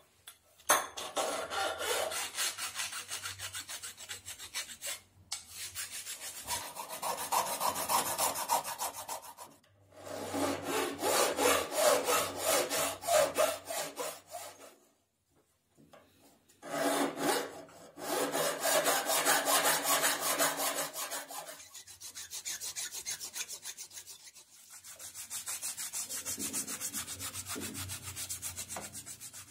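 A hand file rasping across the edge of a small brass hinge in several long runs of quick strokes, with short pauses between them. Near the end, the hinge is rubbed with abrasive paper, a finer, hissier scraping.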